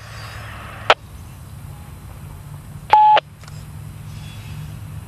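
Railway radio on a scanner: a hiss that ends in a squelch click about a second in, then a single short beep around three seconds in. A low steady rumble from the freight train rolling past runs underneath.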